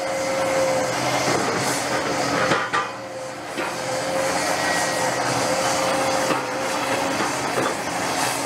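Caterpillar 330F excavator running under load, its engine and hydraulics making a steady hum with a whining tone that swells and fades, while its hydraulic crusher jaws bite into concrete foundation rubble. Scattered cracks and knocks of breaking concrete, the loudest just under three seconds in.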